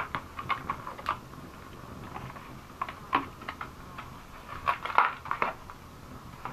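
Plastic bag hanging from a pole crinkling in the wind: irregular crackles, with a louder cluster about five seconds in.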